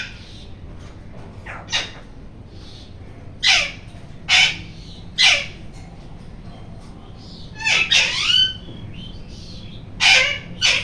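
Indian ringneck parrot (rose-ringed parakeet) giving a string of short, loud calls about a second apart, each falling in pitch, with a quick run of calls around eight seconds in.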